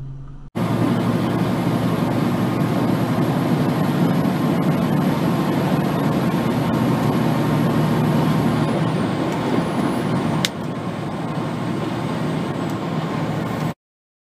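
Steady engine and road noise inside a truck cab cruising at highway speed, about 100 km/h. There is one sharp click about ten seconds in, and the noise cuts off abruptly near the end.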